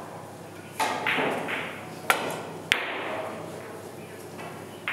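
Pool shot: the cue tip clicks against the cue ball about two seconds in, and the cue ball clacks into the object ball a moment later, with a third sharp knock of the balls near the end.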